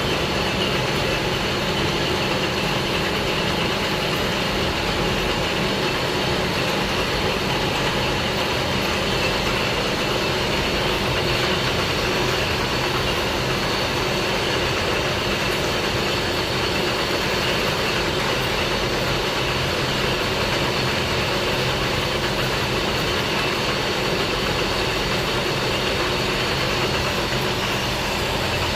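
Lathe machine running with a steady mechanical drone and whine that does not change.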